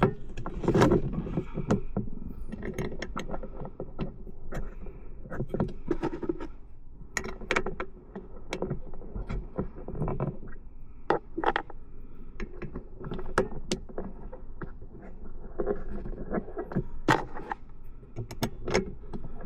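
Hand work on a car's plastic center console: scattered clicks, taps and light rattles of plastic console parts and small hardware being handled and fitted.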